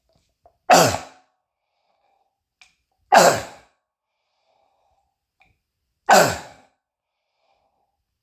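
Three loud, barking croup coughs from a man, about three seconds apart, each a sharp burst that dies away quickly. It is the seal-like bark of croup, which his doctor diagnosed, set off by phlegm irritating his throat.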